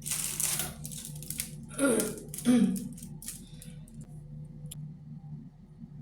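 Precision-tip squeeze bottle of lace wig glue being squeezed: air and glue hiss from the nozzle, then two short squelchy sputters about two seconds in, over a low steady hum.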